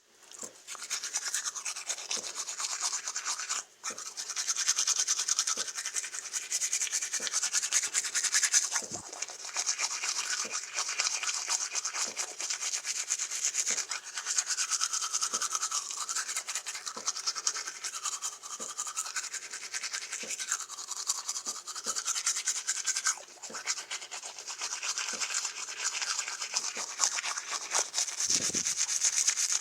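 Teeth being brushed with a manual toothbrush and toothpaste: quick back-and-forth scrubbing strokes, with a brief pause about four seconds in.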